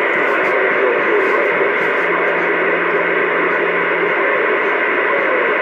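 Steady rushing static from a CB radio's speaker as another station keys up on the channel without speaking, trying to break the squelch; it cuts off suddenly near the end.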